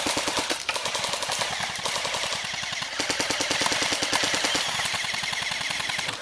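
Airsoft guns firing on full auto: long bursts of rapid, evenly spaced clicks, with brief breaks about half a second and three seconds in.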